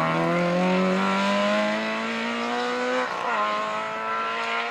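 Rally car engine accelerating hard away, its pitch climbing through a gear, then an upshift about three seconds in and the engine pulling again. It fades as the car drives off.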